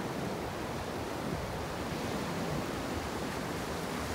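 Ocean surf breaking and washing up the sand in a steady rush, with wind rumbling on the microphone.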